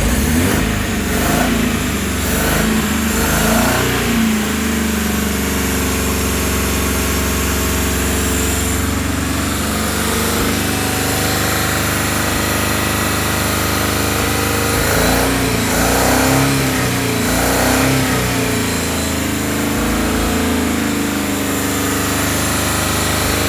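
Chevrolet Chevette four-cylinder engine, fitted in a 1950 MG TD, running just after starting. It idles steadily and is blipped up in revs a few times in the first few seconds and again around the middle.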